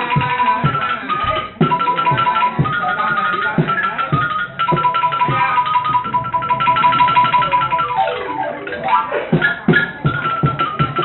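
Music: a quick melody of struck, xylophone-like notes over a steady percussion beat, with a falling run of notes about eight seconds in.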